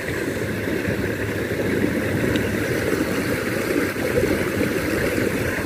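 Water of a small stream running steadily, an even rushing noise with no breaks.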